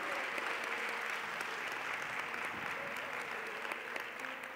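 Church congregation applauding, a steady clapping that dies away toward the end, in thanks to God.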